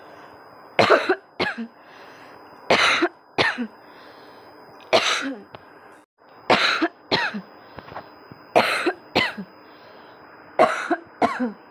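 A person coughing hard and deliberately, as a coughing challenge, in short bouts of two or three coughs every couple of seconds.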